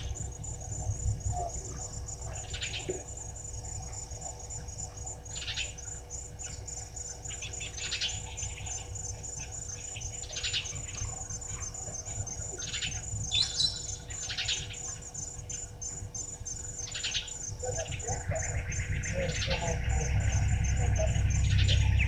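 Night insects trilling in a steady, fast pulse, with short bird calls about every two to three seconds. A low rumble grows louder near the end.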